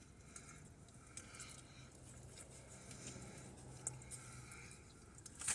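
Faint mouth sounds of a person chewing a chicken nugget: soft smacks and small clicks, with one sharper click near the end.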